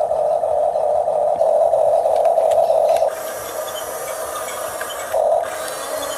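Electric drive motors and gearboxes of a Huina 1569 radio-controlled bulldozer whining steadily as it works. The whine drops back about three seconds in, surges briefly, then picks up again near the end.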